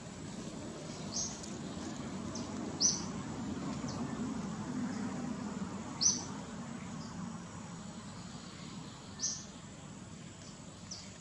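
Outdoor nature ambience: a short, high-pitched chirp repeating about every three seconds over a steady low hum.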